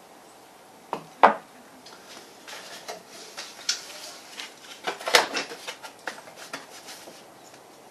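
Tools and small hard parts being handled and set down on a workbench: scattered clicks and knocks, with the sharpest about a second in and a cluster around five seconds in.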